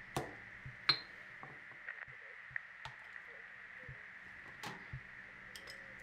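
Sparse kitchen knocks and clicks: a thud just as pounding with a stone mortar and pestle stops, a sharp ringing clink about a second in, then a few light taps as a cutting board is handled on a wooden counter. A faint steady high whine runs underneath.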